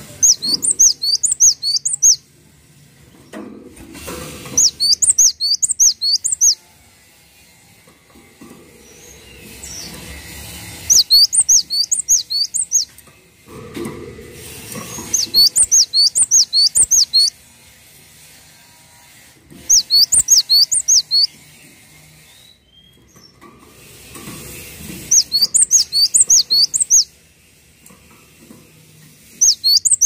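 Cinereous tit (gelatik batu) singing: about seven short phrases, each a quick run of the same high, repeated whistled note lasting about two seconds, given every four to five seconds.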